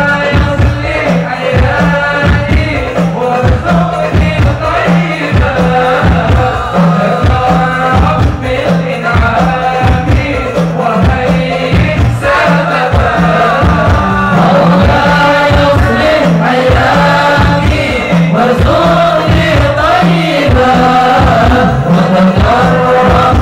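Group of men singing an Islamic devotional chant together through a PA system, over a steady, regular drum beat.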